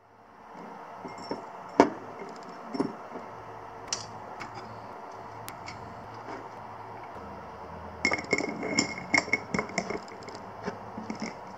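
Crunchy cornflake cookies being put into a glass jar by hand: scattered light knocks and scrapes of cookie against glass, then a busier run of clicks and crinkly rattling over the last few seconds.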